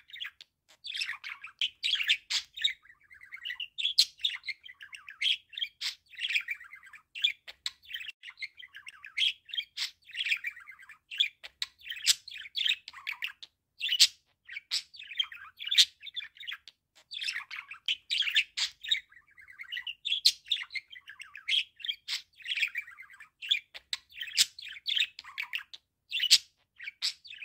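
Male budgerigar warbling: a long, near-continuous chatter of rapid chirps, squeaks and sharp clicks, broken only by short pauses.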